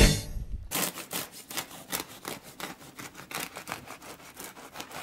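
A knife sawing through a crusty loaf of tiger bread: a rapid, irregular run of crunchy crackles as the crust breaks.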